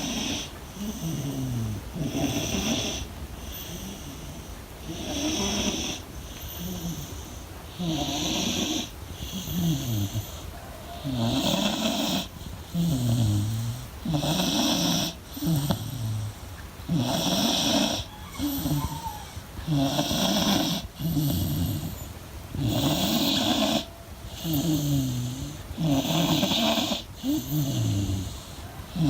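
A beagle snoring in a steady rhythm, a snore every second or two, many of them sliding down in pitch; the snores grow louder about halfway through.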